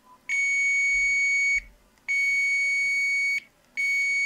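Digital multimeter's continuity buzzer beeping three times, each a steady high tone lasting about a second, as the probe tip touches pads on the back of a motherboard. Each beep signals an electrical connection between the probed points of the VRM output stage.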